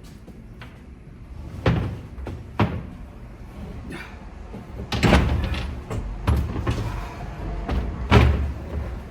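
Several knocks and clunks of tools and metal engine parts being handled and set down, the loudest about five seconds in and again near the end.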